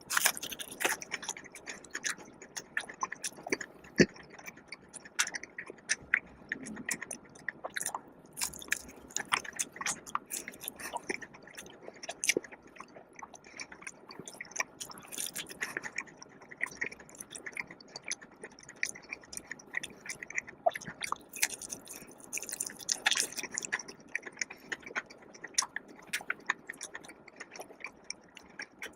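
Close-miked chewing and biting of a fried chicken meal, with many short crisp crunches and wet mouth clicks and a few louder crunchy bites.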